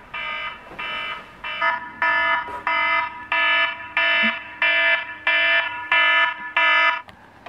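iPhone alarm going off: a pitched beep repeating a little under twice a second, louder from about two seconds in, and stopping shortly before the end as it is switched off.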